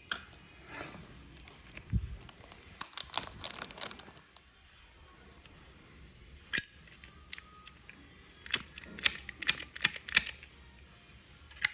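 Metal lighters being handled and set down: scattered sharp clicks and taps, a cluster about three seconds in, a single sharp click midway, another quick run of clicks later and one more near the end, with a little rustling.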